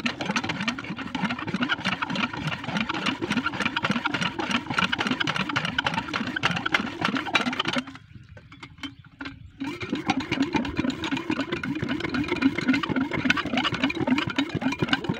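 Small single-cylinder diesel engine driving a water pump, running with a fast, even chug. The sound drops away for about a second and a half partway through, then the engine is running again.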